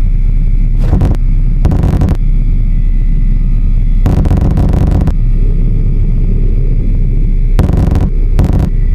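Loud, steady low rumble with a deep hum beneath it, cut by several short bursts of hissing noise, the longest about a second long midway.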